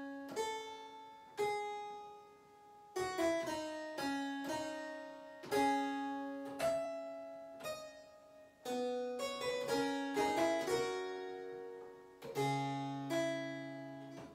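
Harpsichord playing a slow two-voice fugal passage: single plucked notes with sharp starts that ring and die away, two voices moving against each other, with a tied-over note making a dissonance. A lower note joins near the end for the closing chord.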